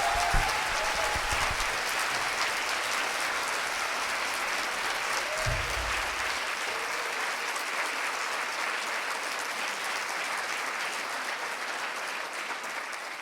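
Concert hall audience applauding steadily at the end of a song, the clapping slowly thinning out toward the end.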